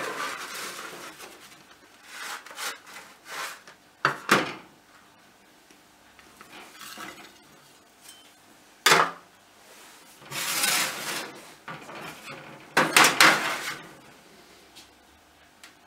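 Metal slotted spatula scraping and knocking against a metal baking tin as a baked roll is lifted out onto a china plate: a series of separate scrapes and clatters, the sharpest about four and nine seconds in, with a cluster of knocks near the end.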